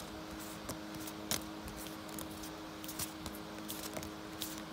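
Stack of trading cards being handled and shifted in the hand, giving scattered soft clicks and flicks, over a steady low hum.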